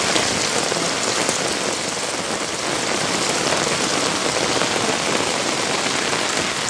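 Floodwater rushing across a road, a steady, even hiss of running and splashing water.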